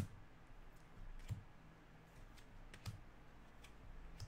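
Trading cards handled and flipped through one by one, giving a few faint, separate clicks and taps over a low steady hum.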